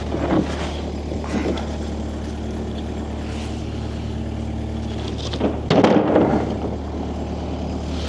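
An engine running steadily at idle, with a louder burst of clattering noise about five and a half seconds in.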